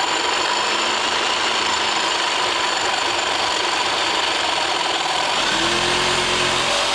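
Corded reciprocating saw running steadily, its blade cutting through a metal exhaust pipe.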